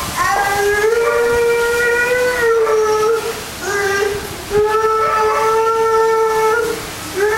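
Dog howling in long, drawn-out, steady-pitched howls, three of them with short breaths between, the first and third held about two seconds each.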